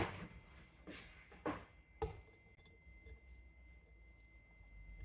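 A few soft knocks and scrapes in the first two seconds as chopped ginger is moved into a glass jar, then near-quiet room tone.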